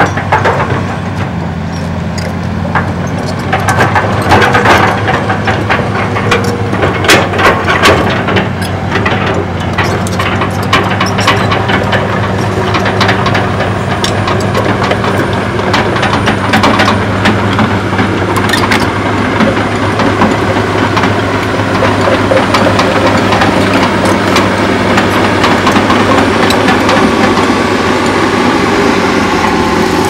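Hitachi Zaxis 200 excavator's diesel engine running steadily as the machine digs, with frequent clanks, scrapes and rattles of the bucket and rubble, busiest in the first ten seconds or so.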